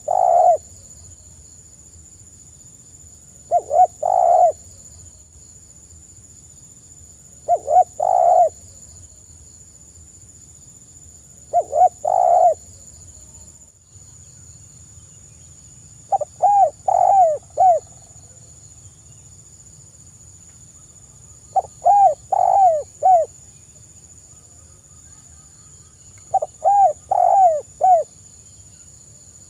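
Spotted dove cooing: short two-part coos about every four seconds, then from about halfway, longer phrases of four or five arched coos every five seconds or so.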